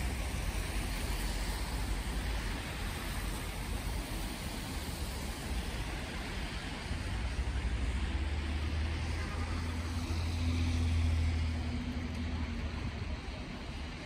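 Steady city traffic rumble, with one vehicle's engine passing, loudest about eleven seconds in.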